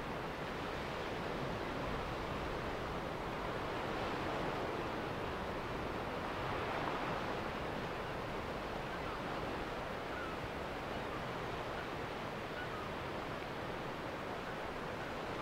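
Ocean surf washing on a rocky beach: a steady rushing noise that swells gently now and then.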